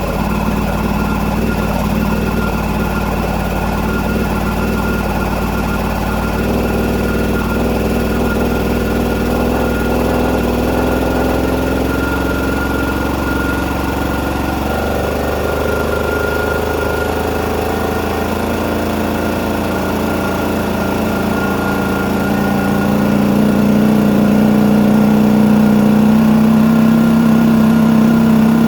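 Husky 27-gallon electric air compressor's motor and pump running steadily as it fills its tank toward the 200 psi cut-out. The sound gets somewhat louder about three-quarters of the way through.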